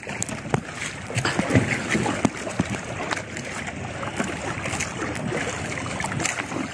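Choppy sea water splashing and lapping against a small outrigger boat, with wind noise and scattered light knocks.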